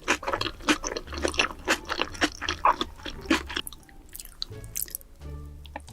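Close-miked chewing and crunching of raw salmon and raw-vegetable spring rolls, with rapid crisp crackles for the first three and a half seconds, then softer, sparser chewing.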